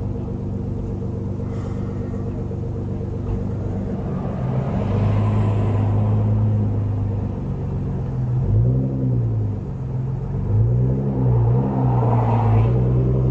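Car engine running steadily, then revving up and back down a few times in the second half.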